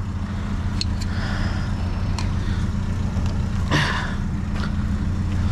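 Vehicle engine idling with a steady low hum. A few light clicks are heard around the first two seconds, and a brief scuffing rustle comes a little before the four-second mark.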